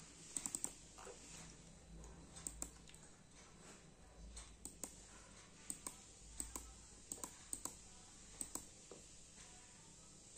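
Faint keyboard key clicks, irregular: a quick run of four near the start, then single or paired clicks every second or so.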